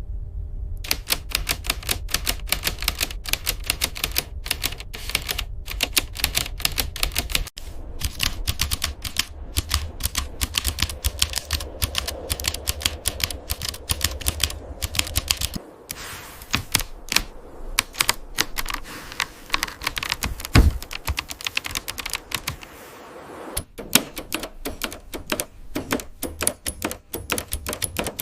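Typewriter keys clacking in quick, uneven runs of strokes, broken by brief pauses, with one heavier thump about two-thirds of the way through.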